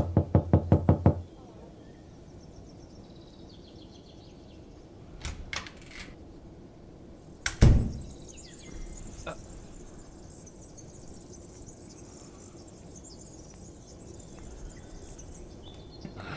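Quick, insistent knocking on a door, about eight knocks in just over a second, then a few fainter thumps and one loud bang about seven and a half seconds in. Faint bird chirps and a steady high hiss sit underneath.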